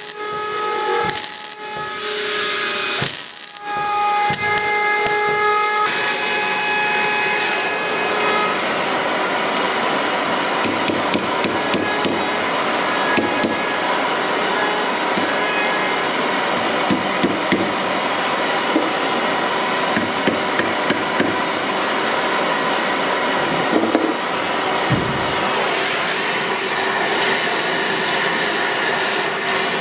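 MIG welder arcing in short stop-start bursts for the first few seconds, then a steady hiss of a gas torch flame heating steel, with scattered light metal taps.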